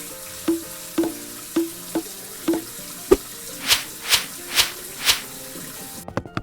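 Background music with a run of cartoon sound effects: six quick pops about half a second apart, a thump, then four whooshes, ending in a few quick clicks.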